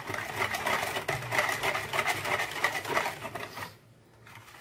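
Metal wire balloon whisk beating a cocoa and sugar mixture in a plastic bowl, a fast, even run of strokes that stops about three-quarters of the way through.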